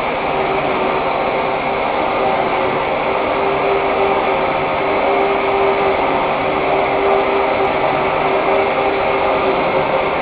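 Gear-cutting machine running steadily as it cuts the teeth of a large ring gear under flowing coolant: an even mechanical noise with a constant mid-pitched tone.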